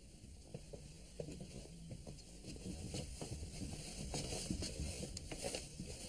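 Footsteps and shuffling of a group of people getting up and walking off across a studio floor: many soft, irregular steps, growing a little louder toward the end.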